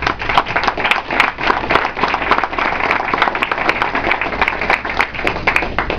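Audience applauding, with many claps close together.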